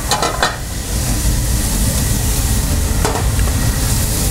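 Baby squid sizzling in oil in a hot frying pan, finishing cooking in the pan's heat, over a low steady rumble. A few knocks come at the start and one more about three seconds in.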